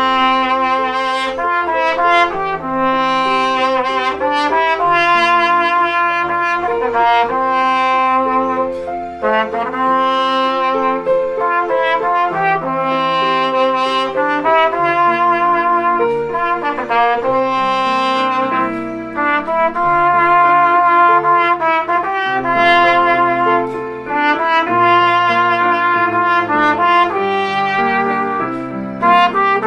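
Brass ensemble playing a slow piece in held chords, several parts moving together from chord to chord.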